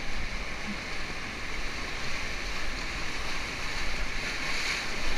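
Whitewater of a river rapid rushing around a paddle raft as it runs through the waves, a steady wash of water noise, with a louder splash about four and a half seconds in.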